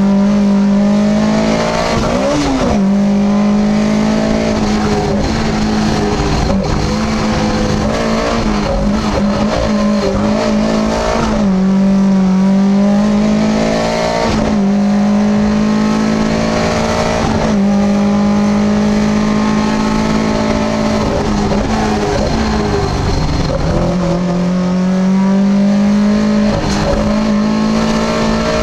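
Lada VFTS rally car's four-cylinder engine at full racing effort, heard from inside the cabin. Its pitch climbs and drops back several times as the car accelerates through the gears and lifts for corners.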